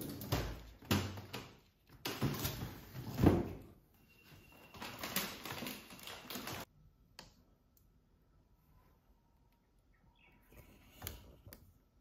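Handling noise at a refrigerator: items knocked, slid and rustled as things are put away in a packed fridge, with several sharp knocks. The noise cuts off abruptly partway through, leaving only a few faint knocks near the end.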